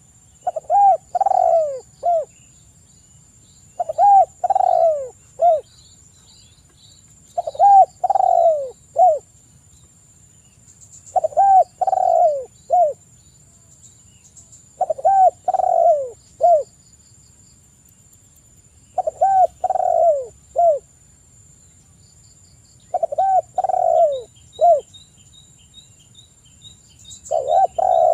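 Spotted dove (tekukur) cooing its three-note 'kuk 3' song, the phrase repeated about every four seconds, seven times, with an eighth starting at the very end. Faint chirps of small birds sound behind it.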